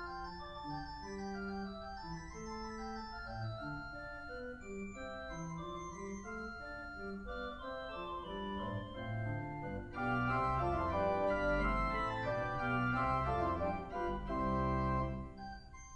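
Church organ playing Baroque music in several independent voices over a low bass line. It swells louder and fuller about ten seconds in, then drops back briefly near the end.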